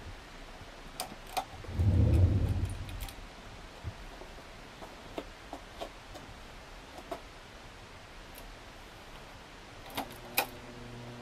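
Tatung spinner ceiling fan running, with scattered light ticks and clicks, and a brief low rumble about two seconds in. Near the end two sharp clicks are followed by a steady electric buzz from the fan motor, which the owner puts down to an old fan with some water damage.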